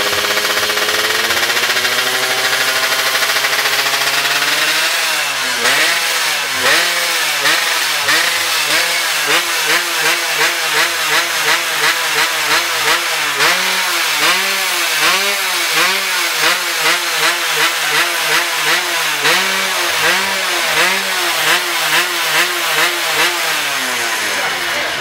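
A drag racing motorcycle's engine held at high revs, then from about five seconds in blipped over and over in a steady rhythm, about one and a half quick revs a second, each rising and falling, until just before the end.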